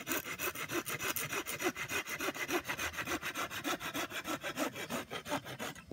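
Hand saw cutting through a branch of wood with quick, even back-and-forth strokes that stop just before the end.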